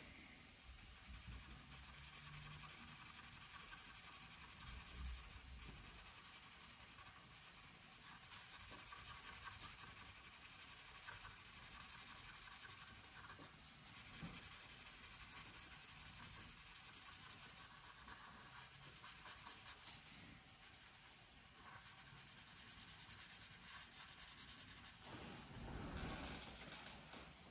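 Felt-tip marker scratching back and forth on paper as an area is coloured in, a faint continuous rubbing with brief pauses. Near the end a soft knock as the marker is put down.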